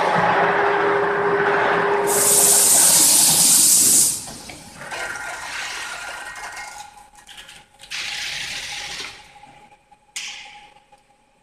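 Loud rushing hiss from an adhesive-tape slitting and rewinding machine as the operator works at its tape rollers. It starts suddenly, is sharpest about two to four seconds in, then eases off, with shorter hissing bursts near eight and ten seconds.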